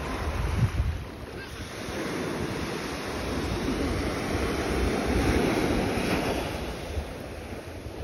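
Small ocean waves breaking and washing up the sand, one wave building about two seconds in and fading away near the end. Wind on the microphone adds a low rumble.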